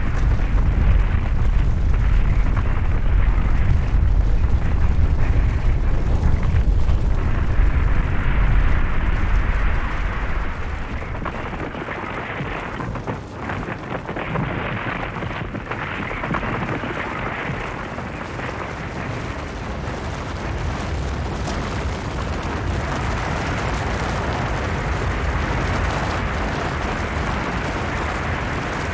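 Avalanche of snow and rock sliding down a mountainside: a continuous heavy rumble with a rushing hiss. It is deepest and loudest for about the first ten seconds, then eases into a lighter, steady rushing hiss.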